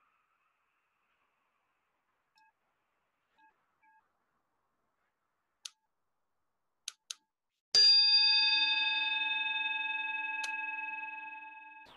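A bell struck once, ringing with several clear overtones and dying away over about four seconds, preceded by a few faint sharp clicks.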